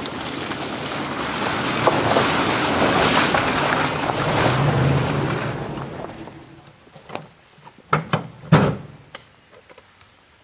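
Toyota Tundra V8 pickup driving through puddles and wet grass on a muddy trail, engine hum and tyre-and-water noise growing louder as it comes close, then fading about halfway through. After that, a few short knocks and thumps.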